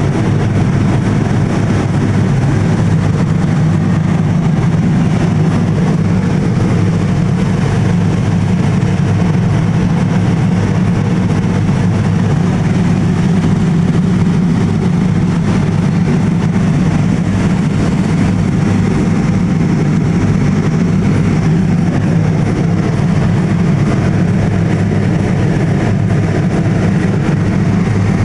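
An engine running steadily, a low, even drone with a haze of noise over it that does not change.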